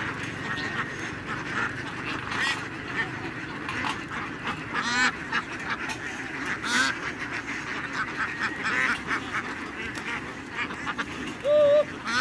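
A large, tightly packed flock of laying ducks quacking together as a dense, continuous chorus, with single louder calls standing out now and then and one brief, louder held call near the end.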